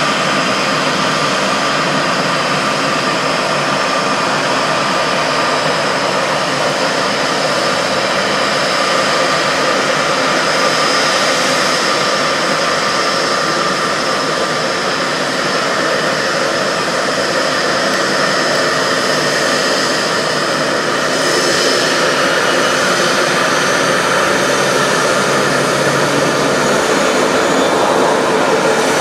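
Jet engines of a Boeing 787 Dreamliner running: a loud, steady rush with a thin whine on top.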